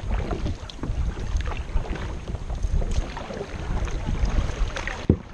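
Water lapping and splashing against a moving kayak's hull in irregular little splashes, with wind rumbling on the microphone.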